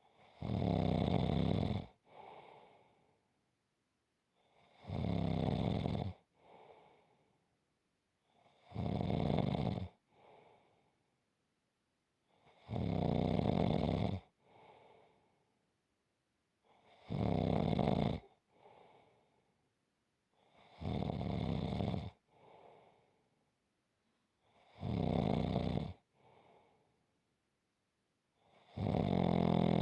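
Regular snoring: a snore about every four seconds, eight in all, each lasting over a second and followed at once by a softer, shorter breath.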